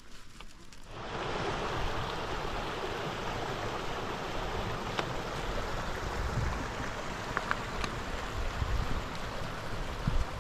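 Shallow stream running and babbling over rocks, coming in about a second in and holding steady, with a few light clicks.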